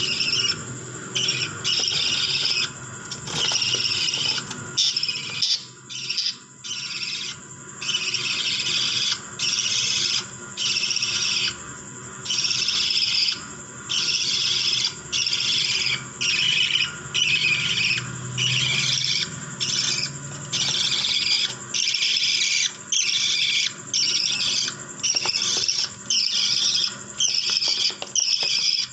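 Budgerigars chattering, a dense, high-pitched twittering that comes in short bursts about once a second.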